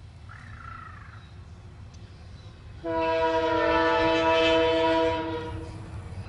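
Multi-tone air horn of twin WDG4 (EMD) diesel locomotives sounding one long blast of about two and a half seconds, starting about three seconds in, over the low rumble of the diesel engines.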